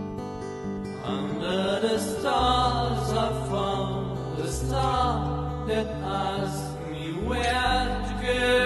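A song: a voice sings long phrases with sliding pitch over guitar, and a low bass line comes in about two seconds in.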